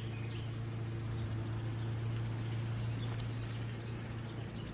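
Honeybees buzzing around an opened hive: a steady low hum, with a faint hiss above it.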